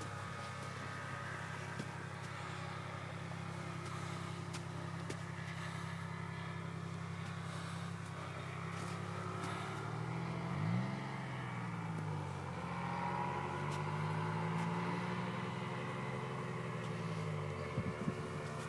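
Small engine of a powered paraglider (paramotor) droning in flight, its pitch rising and falling around the middle as the throttle or distance changes.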